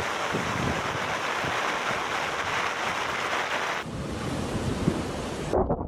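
Steady rushing of storm water with wind buffeting the microphone, as from floodwater or torrential rain in a typhoon. The sound changes abruptly to a duller rush about four seconds in.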